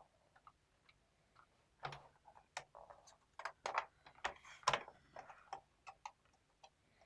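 Plastic clips of a Lenovo IdeaPad L340 laptop's bottom case clicking and snapping loose as the cover is pried off, an irregular run of sharp clicks, thickest in the middle.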